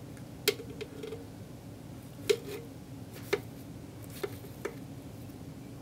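Half a dozen light, sharp clicks at uneven intervals as black feeding tongs tap and knock inside a scorpion enclosure, over a steady low room hum.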